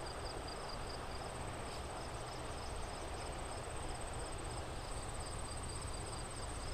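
Insects chirping: a steady high-pitched trill and a fainter, evenly pulsing chirp, over the steady rush of a flowing stream.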